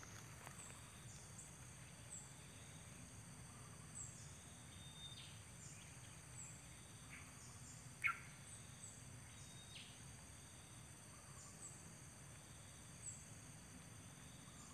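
Faint steady chirring of insects in several high-pitched bands, dotted with short high chirps, and one brief louder chirp about eight seconds in.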